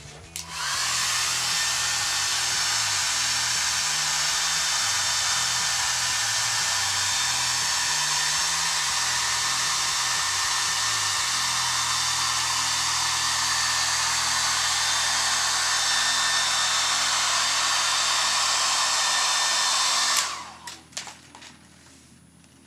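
Handheld hair dryer switched on, blowing steadily for about twenty seconds, then switched off.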